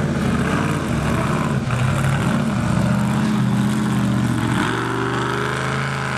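Mud truck's big engine running hard under throttle across the dirt track, then revving up with a rising pitch about four and a half seconds in as the truck climbs a dirt mound.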